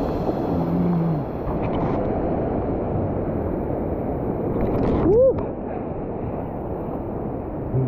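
Surf and whitewater rushing around a paddleboard, a steady wash of water noise. About five seconds in there is a brief high cry that rises and falls, the loudest moment, after which the water sound turns duller.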